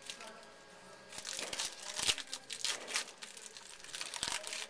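Plastic wrapper of a pack of baseball trading cards crinkling and tearing as it is opened by hand, a run of crackles from about a second in until near the end.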